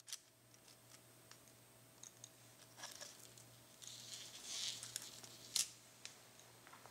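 Faint handling of a plastic model railway turnout and its loose wires: scattered small clicks and rustling, then one sharp click about five and a half seconds in as the piece is set down.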